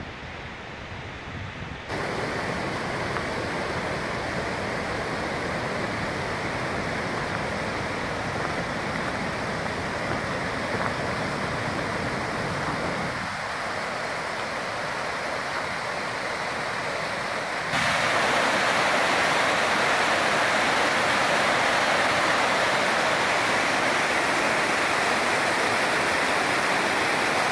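Fast mountain stream rushing over rocks: a steady hiss of white water that gets abruptly louder about two seconds in and again about two-thirds of the way through.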